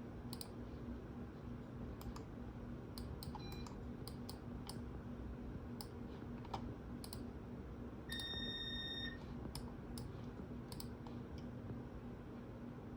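Scattered sharp clicks of a computer keyboard being used, over a steady low electrical hum. About eight seconds in, a single high electronic beep lasts about a second.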